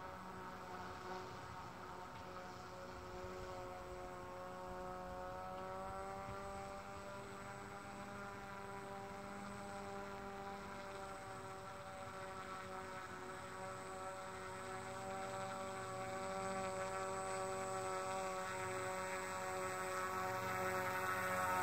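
Handmade RC fan boat's motor and air propeller running with a steady whine that wavers slightly in pitch, growing louder over the last few seconds as the boat comes closer.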